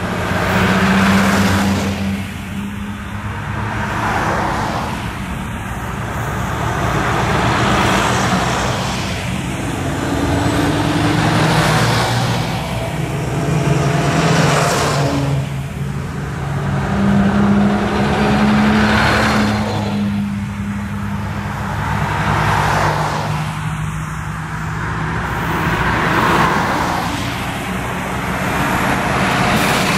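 A convoy of fire engines and other emergency trucks driving past one after another, each diesel engine and its tyre noise swelling and fading every few seconds over a steady low engine hum, with no sirens.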